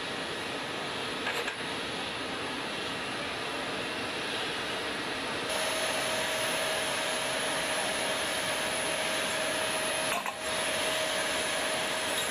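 Steady whine over a rushing noise from a running aircraft turbine on the flight line. It jumps louder and brighter about five and a half seconds in.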